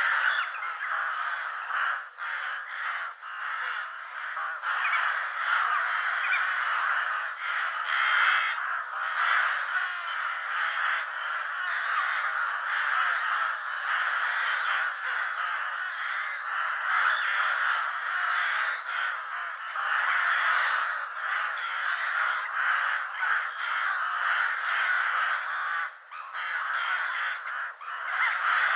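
A flock of crows cawing, many calls overlapping into a continuous din.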